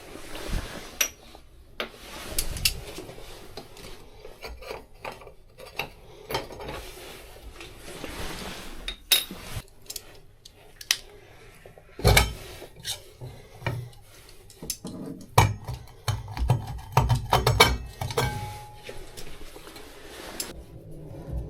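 Metal tools and parts being handled: irregular clinks, knocks and rattles, with a few louder clanks in the second half.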